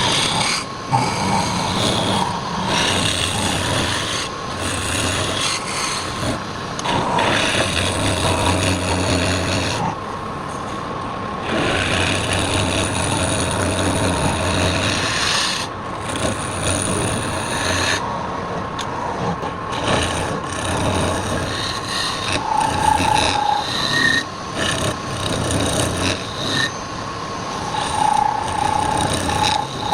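Wood turning on a lathe, with a tool or abrasive rasping and scraping against the spinning workpiece in spells of a few seconds. A steady whine runs underneath throughout.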